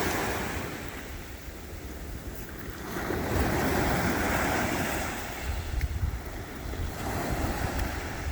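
Wind buffeting the microphone over a steady rushing wash of sea noise, rising in swells about three seconds in and again near the end.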